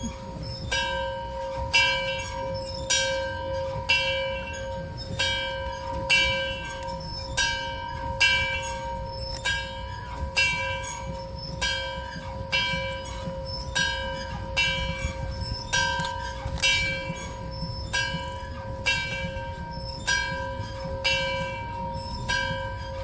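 A large bell tolling steadily, struck about once a second, with its deep hum ringing on between strokes.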